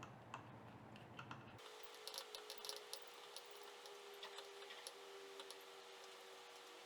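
Faint, scattered light clicks and taps of a DVD recorder remote control's plastic parts being handled, busiest in the middle of the stretch.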